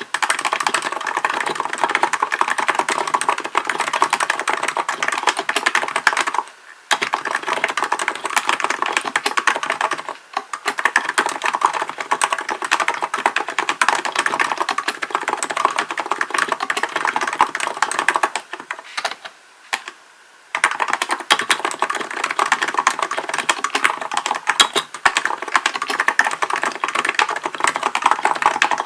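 Steady, fast typing on a Hansung GK898B electro-capacitive (contactless) keyboard, a dense run of soft keystrokes. It stops briefly about a quarter of the way in and for about two seconds around two-thirds of the way through, then resumes.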